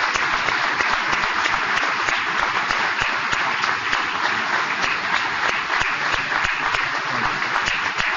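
A crowd applauding steadily, an ovation for the law enforcement officers in attendance.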